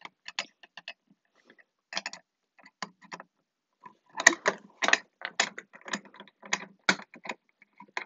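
Irregular metallic clicks and clatter from a Gamewell fire alarm pull station being handled. They are sparse at first, then come in a quicker run from about halfway through.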